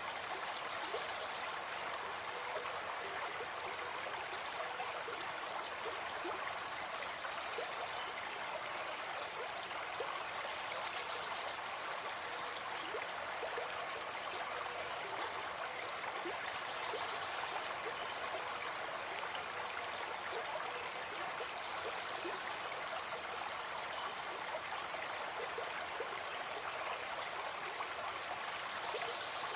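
A stream running steadily, a constant rush of water with many small gurgles and splashes.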